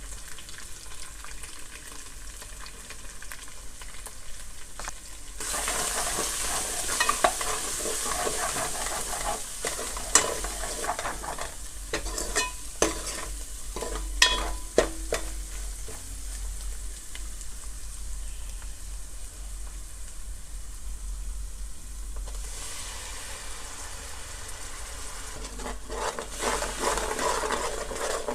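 Curry sizzling as it fries in a pan while being stirred, with a spoon clinking against the pan several times. The sizzle grows louder about five seconds in and again near the end.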